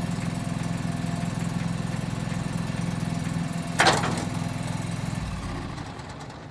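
John Deere 445 lawn tractor's engine idling steadily, with one sharp clack about four seconds in; the engine sound fades away near the end.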